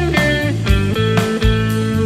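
Electric guitar solo with bent notes, over bass guitar and drums, in a pop-rock band's instrumental break.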